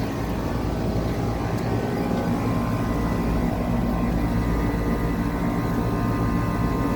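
Lennox central air conditioner condensing unit running steadily, freshly started: the condenser fan blowing and the compressor humming.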